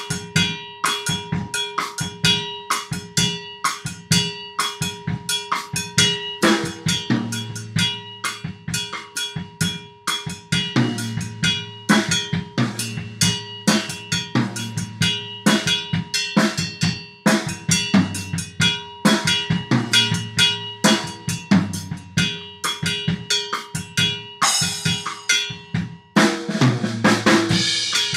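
Drum kit with a cowbell playing a samba groove: fast, even cowbell strokes ringing over bass drum and snare. A cymbal wash comes in near the end.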